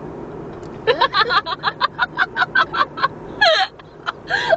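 A woman laughing in a quick run of short ha-ha bursts starting about a second in, then two short falling yelps near the end, over a steady low vehicle hum.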